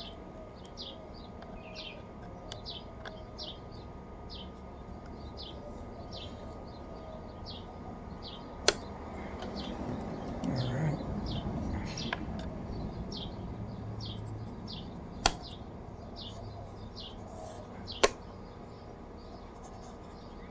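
A bird repeating a short, falling chirp about one and a half times a second, with four sharp clicks standing out above it.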